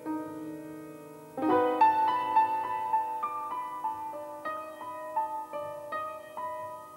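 Background music played on piano: a soft held chord, then about a second and a half in a louder, slow melody of single struck notes that ring and fade.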